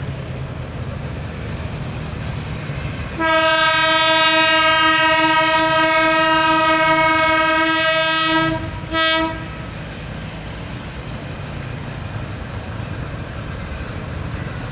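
Diesel locomotive D 300 23 sounding its horn: one long blast of about five seconds, then a short second blast, over the steady rumble of its running engine.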